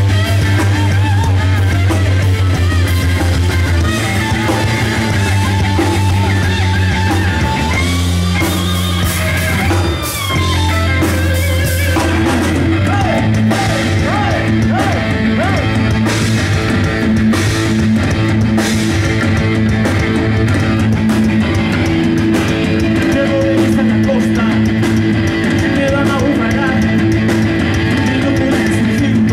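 Live rock band playing loud: distorted electric guitar leading over electric bass and a drum kit, with bending guitar notes up to a brief break about ten seconds in, after which the band moves into a new section.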